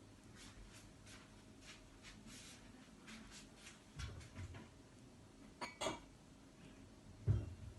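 Kitchenware being handled, a teapot and pots being moved and set down: a few soft knocks, a sharp clink about six seconds in, and a louder knock near the end.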